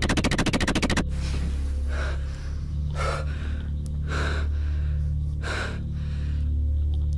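A harsh, rapid stuttering glitch effect for about the first second, then a low droning music bed under a man's heavy gasping breaths, four of them about a second apart.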